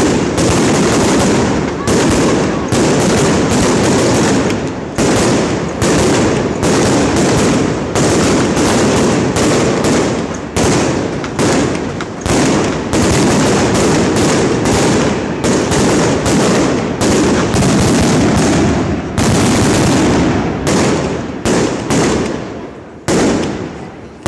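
Aerial fireworks barrage: a dense, near-continuous run of loud bangs and crackling reports, several a second. In the last few seconds it breaks up into separate bangs with short gaps.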